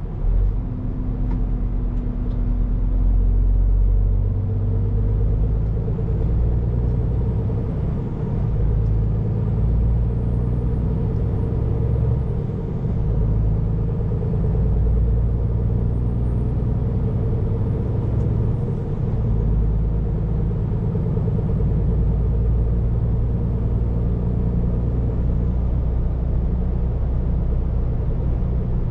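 Scania P410 truck's 13-litre straight-six diesel heard from inside the cab, pulling steadily at road speed with a constant low rumble and road noise. A faint high whine climbs and drops away three times, with brief dips in the engine note.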